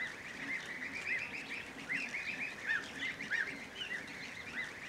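A flock of Kars geese, the local Turkish breed, calling: many short, high calls that rise and fall, several a second and overlapping one another.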